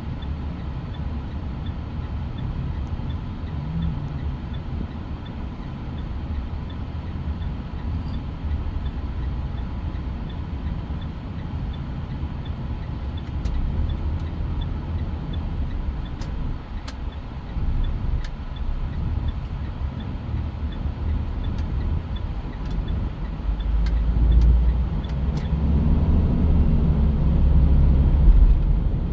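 Mitsubishi Pajero Sport on the move: steady low engine and road rumble that grows louder over the last few seconds.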